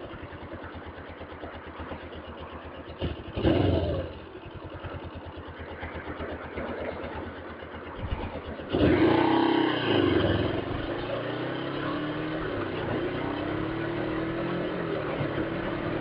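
Suzuki GS500E parallel-twin engine idling, heard through a helmet microphone. About nine seconds in the bike pulls away, and the engine note rises steadily as it accelerates.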